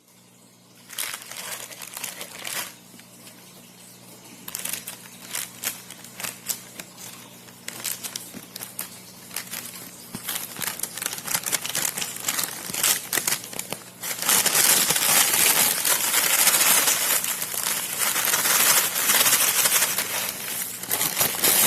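Plastic packaging crinkling and crackling as it is handled, in scattered bursts at first, then continuous and louder for the last third.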